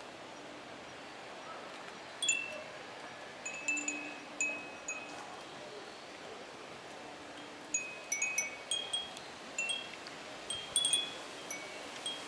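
Japanese fūrin wind chimes tinkling in irregular, short high strikes. A few ring out about two seconds in, then a thicker cluster follows from about eight to eleven seconds.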